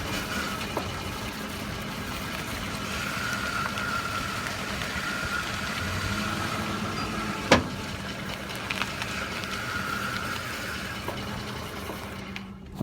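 2005 Ford F-150 FX4 running at low speed while steering, with one sharp pop from the front end about seven and a half seconds in and a few fainter ticks. The popping persists despite new upper and lower ball joints and upper control arms, and comes mostly as the steering returns to center from a turn.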